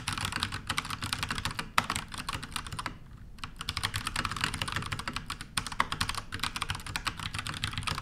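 Fast typing on an Akko 3068 compact mechanical keyboard fitted with Akko silent Haze Pink switches: a dense run of muted keystrokes, quite silent, with a short pause about three seconds in.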